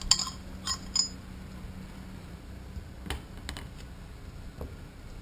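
Sharp metallic clicks and scrapes as a pin pries the cut metal coupon out of a hole saw: three quick clicks with a slight ring in the first second, then a few fainter clicks about three seconds in.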